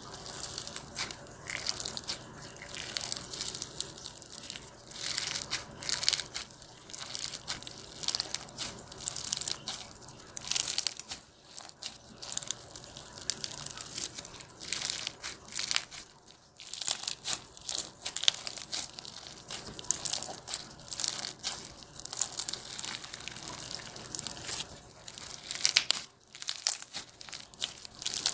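Slime being squeezed and pressed by hand, giving dense crackling and crunching in bursts with a few brief pauses.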